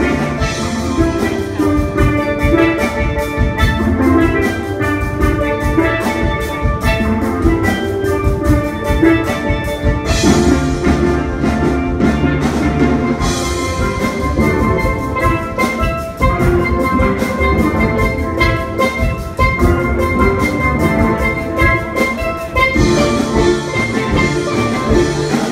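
Steel pan band playing a tune together, the high pans carrying many quick ringing notes over bass pans.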